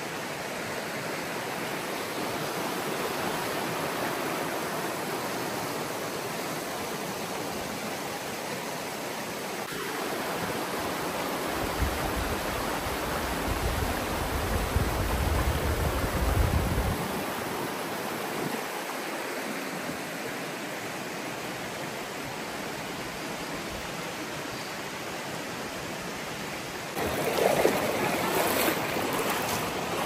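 Creek water rushing steadily over rocks. A low rumble rises for several seconds midway, and there is a brief louder noise near the end.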